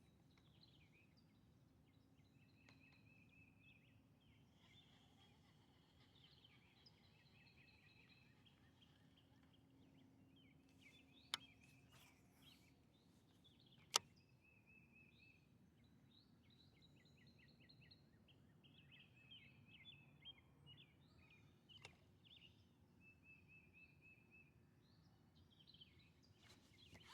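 Faint birdsong: short repeated whistled notes and trills, over a low steady background hiss. Two sharp clicks sound about halfway through, the second one the loudest.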